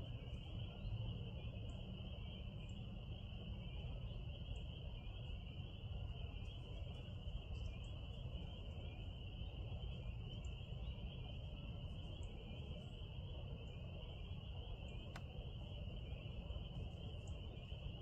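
Steady shrill chorus of many distant small calling animals, a dense pulsing trill that never stops, over a low rumble. Faint short high chirps are scattered through it, and a single sharp click comes about fifteen seconds in.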